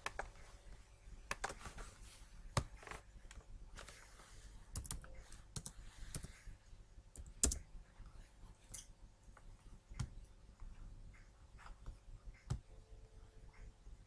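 Computer keyboard typing and mouse clicks: quick runs of keystrokes through the first half, then sparser single clicks, a few of them louder.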